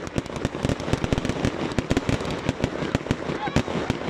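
Fireworks going off: shells launching and bursting in a fast, irregular string of sharp bangs and pops, several a second.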